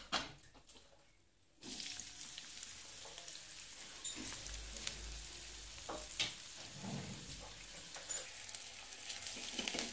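Chopped onion frying in hot oil with cumin seeds and garlic in an aluminium kadai. A steady sizzling hiss starts suddenly about one and a half seconds in, with a few sharp ticks from spattering oil.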